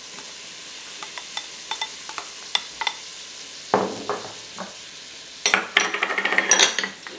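Diced onions and jalapeños sizzling in melted butter in an Instant Pot on sauté mode, with light crackling. A slotted spoon and glass bowl clatter and clink, busiest in the last two seconds.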